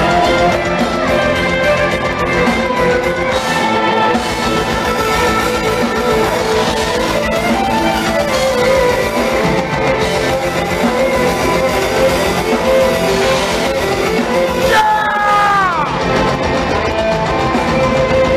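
A progressive extreme metal band playing live: distorted electric guitars, bass and drums with an amplified violin bowed over them. About fifteen seconds in, a high melodic line slides down in pitch.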